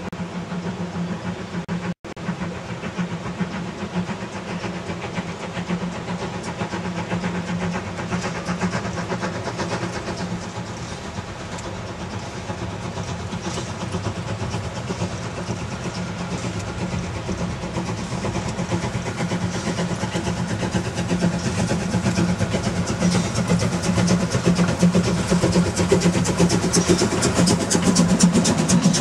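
Narrow-gauge steam locomotive hauling a freight train, working steam as it approaches; its sound gets steadily louder until it passes close near the end.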